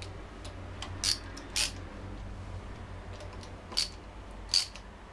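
Sharp metallic clicks and taps from hands seating the outer crankcase of a Triumph Trident T150V engine over its dowels and fitting its bolts. There are four loud clicks at irregular spacing and a few fainter ones, over a low steady hum.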